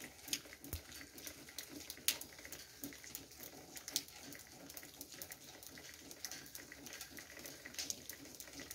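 Water dripping in irregular sharp drips, a louder one now and then, over a faint low background murmur.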